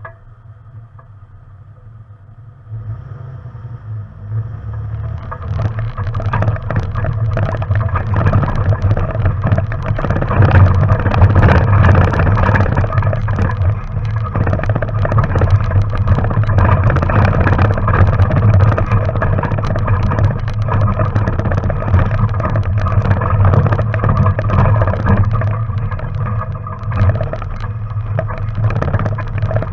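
Off-road vehicle's engine running as it drives along a rocky gravel trail, with rumble and crunch of tyres over loose stone. Quieter for the first few seconds, then the level rises sharply as it picks up speed and stays loud.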